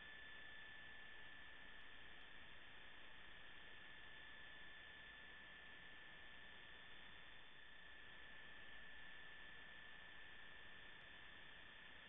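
Near silence: a faint steady hiss with a thin, steady high-pitched tone, the broadcast's noise floor.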